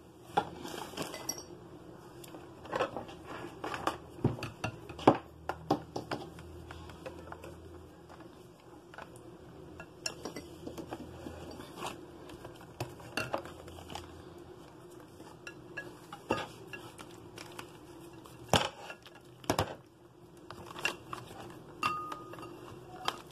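A white plastic slotted spatula mixing and pressing shredded chicken in a glass bowl, knocking and scraping against the glass in irregular clinks and taps.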